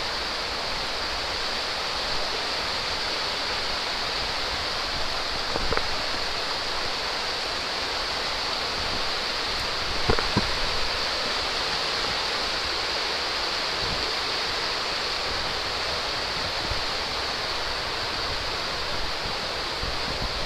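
Steady rush of fast-flowing river rapids heard through the woods, with a couple of brief knocks about six and ten seconds in.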